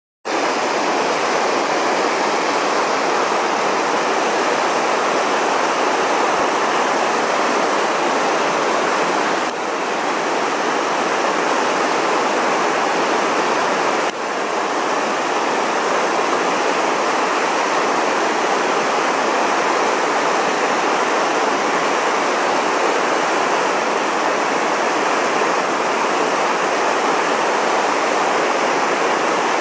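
Shallow, stony stream running over rocks and pebbles: a steady rush of water.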